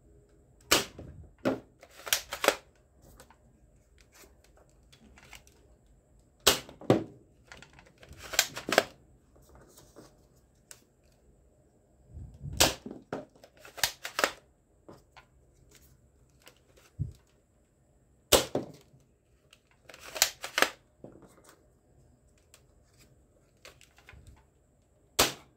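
Plastic toy foam-dart blaster being worked by hand: sharp plastic clicks and clacks in short groups every few seconds.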